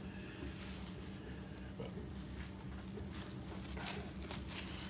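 Faint, scattered crinkles and rustles of plastic cling film being pressed by hand into a pastry case, over a steady low hum.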